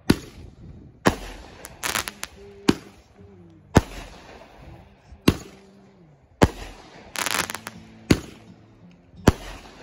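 Aerial fireworks going off: eight sharp bangs, roughly one every second and a quarter. There are bursts of crackling about two seconds in and again just past seven seconds.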